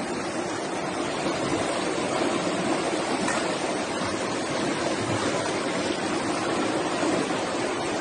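Floodwater rushing down a paved street: a steady, even rush of fast-moving water.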